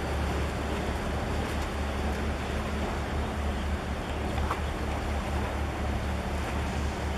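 Steady low engine drone of a large container ship passing close by, mixed with a haze of wind on the microphone and water wash.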